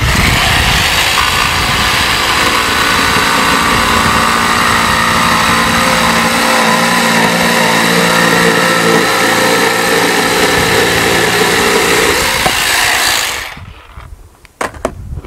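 Jigsaw cutting through a wooden plank, running steadily for about thirteen seconds, then winding down and stopping near the end.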